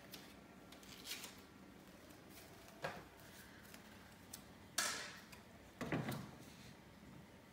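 A few scattered knocks and rustles from someone moving on and off a folding step stool on a tile floor, loudest about five seconds in and just after, where a lower thump comes as he steps back up onto it.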